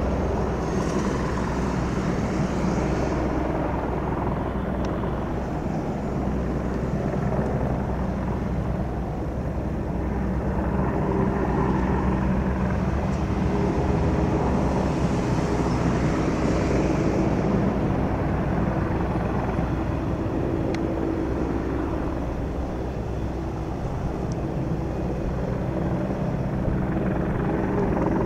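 News helicopter hovering and circling close overhead: the steady drone of its main rotor and turbine engine, growing a little louder and softer as it turns.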